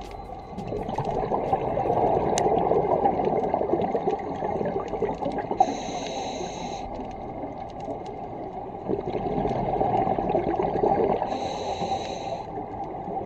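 Scuba diver breathing through a regulator underwater: two long bubbling exhalations, each followed by a shorter hissing inhalation.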